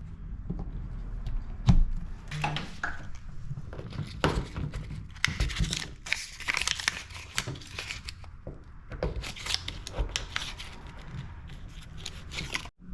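Hands handling cables and plastic parts: irregular rustling, crinkling and sharp clicks, with no steady rhythm.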